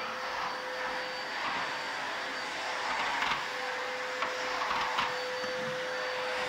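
Vacuum cleaner running steadily: a rushing hiss with a steady whine from its motor, and a few light knocks as the hose nozzle is worked over office carpet.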